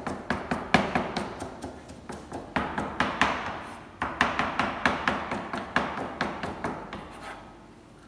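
Chef's knife chopping green herbs on a cutting board: a quick run of sharp knocks, about four or five a second, that thins out and stops shortly before the end.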